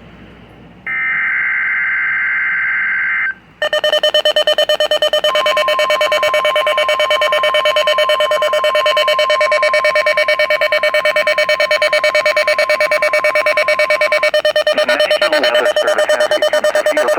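Weather radio sounding an EAS alert: the last of the SAME digital header's warbling data bursts, then the receiver's rapid pulsing alarm beep. Under the beeping, the 1050 Hz weather radio warning tone is held steady for about nine seconds, signalling a coming weather alert message.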